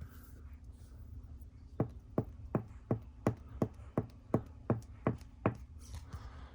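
Eleven sharp, even taps on a hard surface, close to three a second, starting about two seconds in, over a low steady hum.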